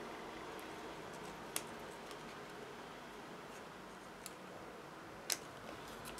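Faint, sharp clicks from a pen-shaped pick tool prying glue dots off their plastic backing sheet, a few of them over a low room hiss, the sharpest about five seconds in.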